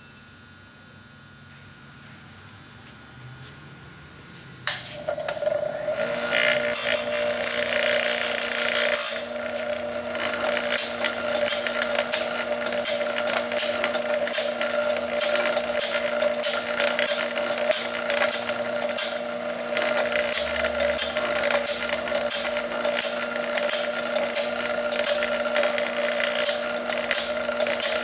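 Chainsaw raker (depth-gauge) grinding machine switching on about five seconds in, its motor running steadily. A couple of seconds of grinding follow, then a regular short grinding stroke with a click about every 0.7 seconds as the chain is cranked through and the rakers are ground down one after another.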